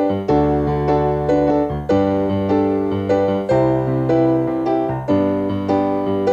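Digital piano playing a hymn accompaniment: full chords over bass notes, struck in a steady beat about two to three times a second.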